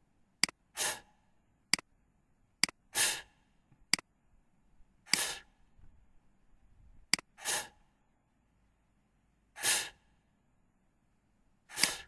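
A voice making the phonics /f/ sound six times, a breathy "fff" hiss about every two seconds, with short sharp clicks in between.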